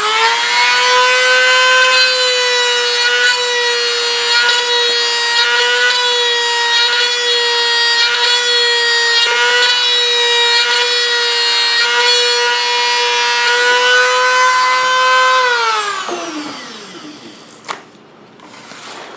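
Dremel rotary tool spinning a brass tube at a steady high-pitched whine while it burns rivet impressions into primed balsa. About fifteen seconds in it is switched off and winds down with a falling whine, and a single click follows.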